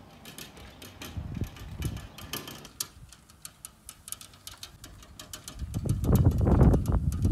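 A bicycle towing a home-made two-wheeled trailer rolls past close by over grass: light clicks and rattles at first, then a louder low rumble as it passes, mixed with wind buffeting the microphone.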